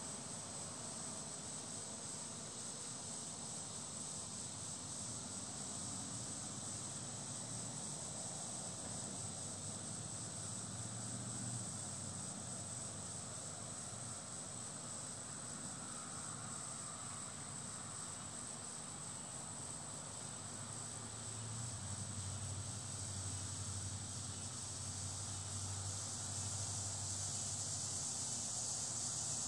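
Steady high-pitched insect chorus trilling outdoors, growing slightly louder near the end, with a low hum that swells twice and fades.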